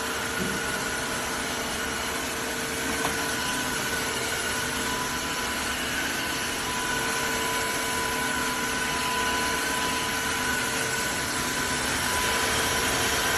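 Tineco iFLOOR 3 Breeze wet-dry vacuum mop running steadily: a constant motor hum and whir with a few fixed whining tones over a broad rushing noise.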